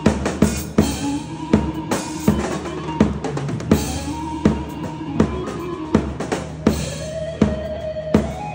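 Live Turkish folk music: a bağlama, a long-necked plucked lute, plays a melody over a drum kit. The drum kit keeps a steady beat, with a hard bass-drum and snare hit about every three-quarters of a second and lighter strokes between.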